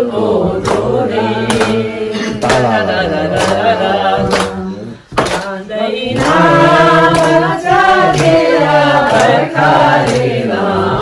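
A group of Sherpa voices singing a folk dance song together, with a sharp beat about once a second. The singing breaks off briefly about halfway through, then comes back louder.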